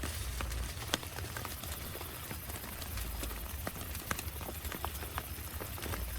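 Rain falling on a tent, the drops tapping on it irregularly, several a second, over a steady low rumble.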